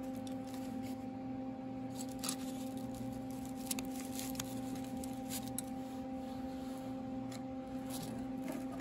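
Light, scattered clicks and plastic-bag crinkles as Cleco pliers and spring-loaded Cleco temporary fasteners are handled, over a steady hum.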